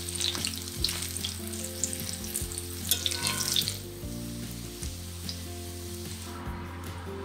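Asparagus latkes shallow-frying in oil in a cast-iron skillet, sizzling with many small crackles and pops; the crackling thins out near the end.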